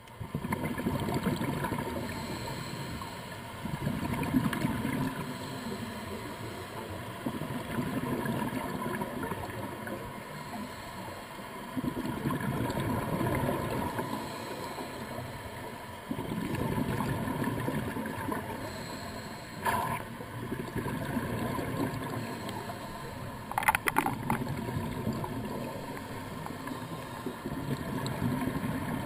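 Scuba diver breathing through a regulator underwater, each exhalation a rumbling rush of bubbles that swells and fades every few seconds. Two sharp clicks sound about two-thirds of the way through.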